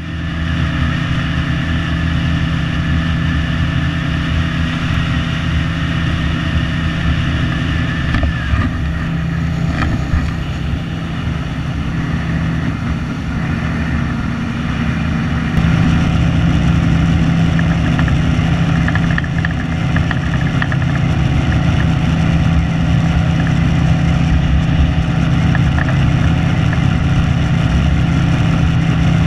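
Yamaha outboard motor running steadily at speed, driving an aluminum fishing boat over calm water, a loud steady drone that gets a little louder about halfway through.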